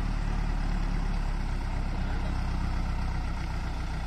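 Tractor's diesel engine idling with a steady low drone, the tractor stuck under a full load of sugarcane.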